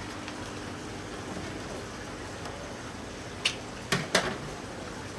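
Steady room hum with three sharp knocks or clicks in quick succession a little past the middle.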